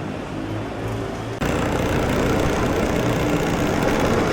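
Vehicle engines running in street traffic with a steady low hum, jumping abruptly louder about a second and a half in.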